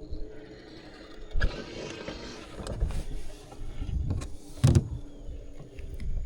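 Knocks and rustling from handling a freshly caught crappie in the boat while laying it out to be measured, with two sharp thumps, the louder one near the end.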